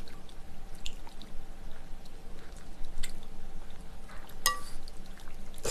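Wooden chopsticks stirring and lifting wide, slippery Chinese glass noodles through a little sauce and water in a bowl: soft wet squelching and dripping with small light clicks. One sharper click with a brief ring comes a little over four seconds in.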